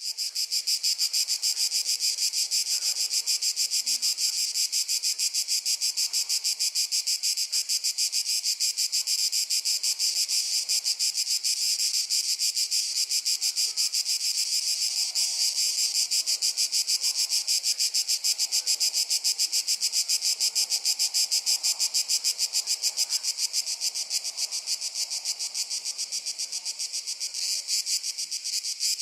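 A chorus of crickets chirping in a fast, steady, even pulse, high-pitched and unbroken.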